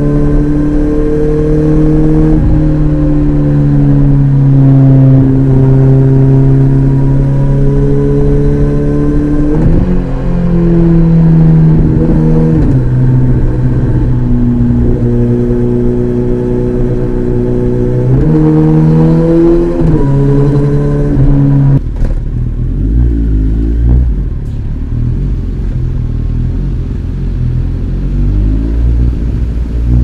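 Kawasaki ZX-14R's inline-four engine with an Akrapovic exhaust running under way. The note holds steady for stretches and shifts pitch up and down several times as the revs change. In the last third it settles into a deeper, lower rumble.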